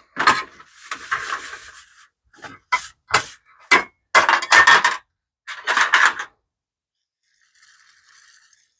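Thin sheet-metal heat shield and tools handled on a sheet-metal work tray: a short scraping rub about a second in, then a run of sharp knocks and clatters, and a faint rustle near the end.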